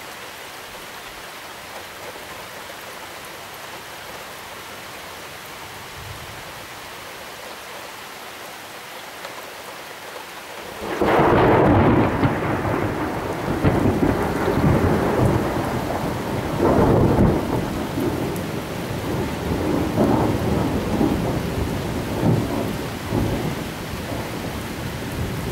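Steady downpour hissing, then about eleven seconds in a loud thunderclap breaks out suddenly and rolls on as rumbling thunder in repeated surges under the rain.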